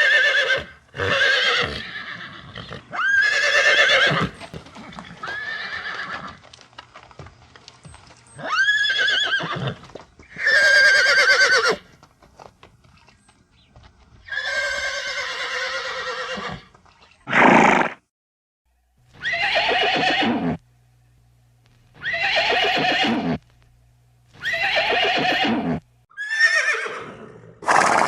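Horse neighing again and again: about a dozen loud whinnies, each a second or two long, with short pauses between them.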